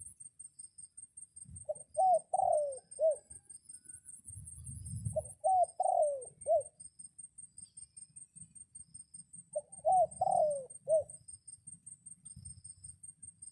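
Dove cooing: three phrases of about four coos each, a few seconds apart. This is a caged decoy dove calling to lure wild doves to it.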